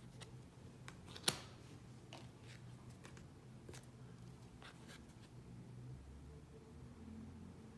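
Tarot cards being handled and flipped: faint soft flicks and slides of card stock, with one sharper click a little over a second in, over a faint low hum.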